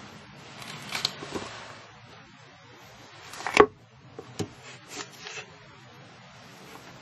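Scattered rubbing and knocking sounds in a small room, the loudest a sharp knock about three and a half seconds in, followed by a few fainter knocks.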